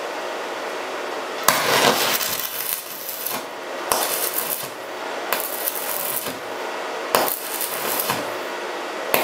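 Electric arc welding with a small inverter welder: the arc crackles and sizzles in several short runs, starting about one and a half seconds in, as steel rebar is welded to a steel plate.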